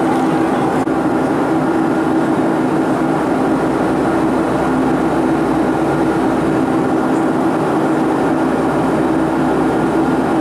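Boeing 757-330 cabin noise in cruise: an even rush of air with the engines' steady drone and a few steady hums underneath, unchanging throughout.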